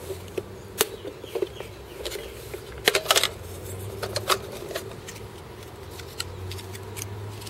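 Handling noise from a plastic RC-car battery holder: scattered sharp clicks and knocks, the loudest cluster about three seconds in, over a low steady hum.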